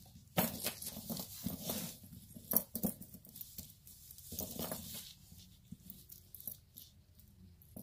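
Gold-tone metal chain necklace being handled on a cloth-covered table: links clinking, with light rustling and scattered small clicks, busiest in the first couple of seconds.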